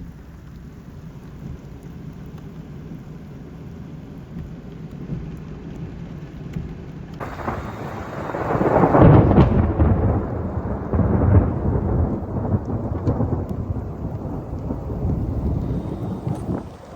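Steady heavy rain, then thunder: the sound jumps suddenly louder about seven seconds in, peaks in a deep rumble about nine seconds in, and keeps rumbling.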